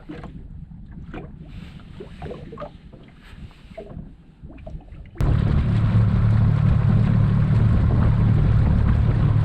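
A few faint scattered knocks and rustles, then about five seconds in an abrupt jump to a boat motor running steadily under way, loud, with wind noise over it.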